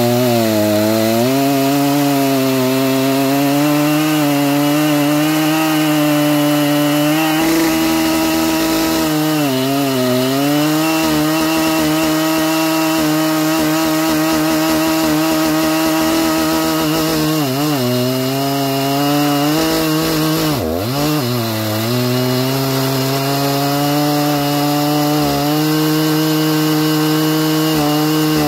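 Stock Husqvarna 3120XP two-stroke chainsaw running at full throttle, cutting through a large log. Its engine pitch holds steady in the cut, sagging briefly about 10 seconds in, near 18 seconds and around 21 seconds before recovering.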